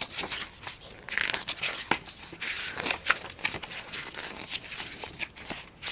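Pages of a K-pop album's glossy photo book being turned by hand: a series of papery swishes and rustles, with one light tap about two seconds in.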